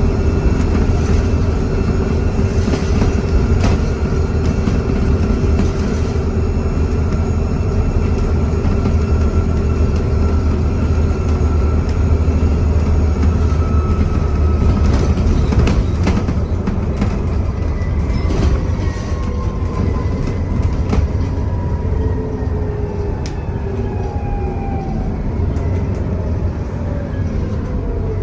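Alexander Dennis Enviro400 double-decker bus running under way, engine drone with a high turbocharger whistle. The whistle holds steady for the first half, then slides down in pitch over the last ten seconds or so as the engine eases off, with a few clicks and rattles.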